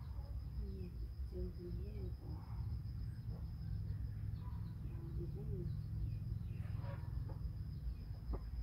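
Background ambience: a steady low rumble under a thin, steady high-pitched whine, with a few faint wavering calls about a second in and again halfway through.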